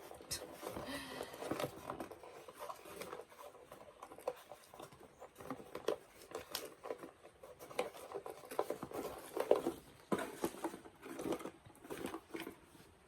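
Scattered light clicks, taps and rustles of small plastic toy accessories and packaging being handled, irregular throughout.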